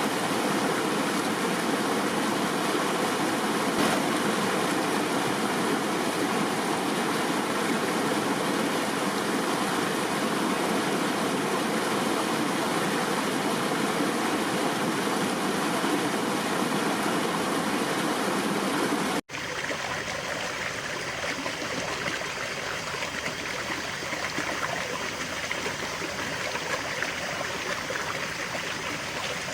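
River water flowing and rushing steadily. About two-thirds of the way through it cuts off for an instant and resumes as a slightly quieter, duller stream recording.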